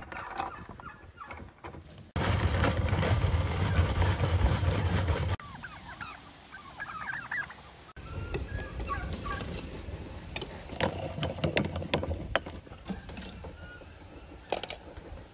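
Turkeys gobbling in the background, with a loud stretch of rushing noise from about two seconds in that lasts some three seconds. After that come sharp clinks of lumps of charcoal being moved with metal tongs in a small clay tandoor.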